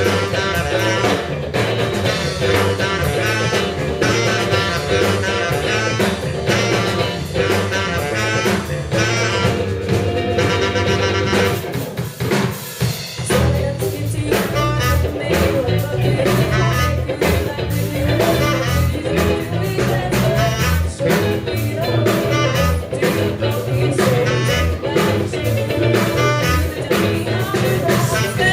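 Live band playing a funk-rock song: a tenor saxophone over drum kit and electric guitar, loud and continuous.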